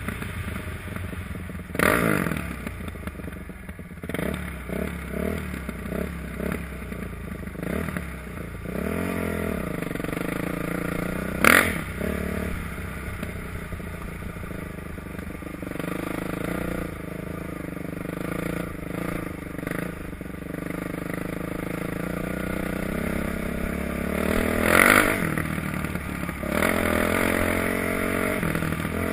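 2008 Kawasaki KX450F's four-stroke single-cylinder engine running under way, its revs rising and falling with the throttle, with a quick run of blips a few seconds in. Sharp knocks come three times, the loudest about a third of the way through.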